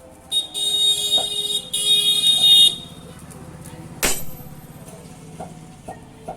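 Two long, high-pitched horn blasts back to back, then a single sharp metal clang with a ringing tail about four seconds in.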